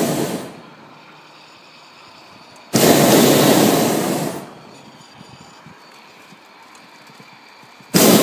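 Hot air balloon's propane burner firing in blasts: one fading out about half a second in, a second of nearly two seconds about a third of the way through, and a third starting near the end.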